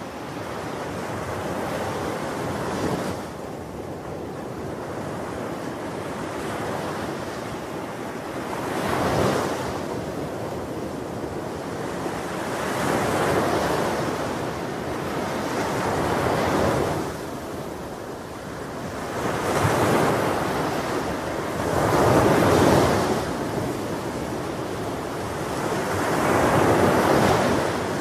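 Sea surf: waves breaking and washing up a sandy beach, swelling and easing about every three to four seconds, with wind blowing over the microphone.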